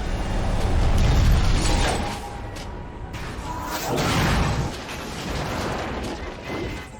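Action-film sound effects of a blast and crashing debris: a deep rumble strongest in the first two seconds, then crashing, clattering impacts about four seconds in and again near the end.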